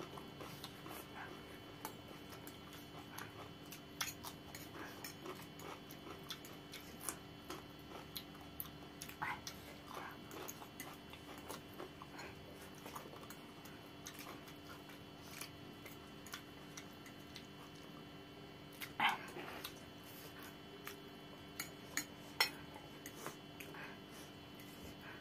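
Quiet eating sounds: metal forks clicking and scraping on plates, with chewing and slurping of noodles, over a faint steady hum. A louder brief sound comes about nineteen seconds in, followed by a few sharp clicks.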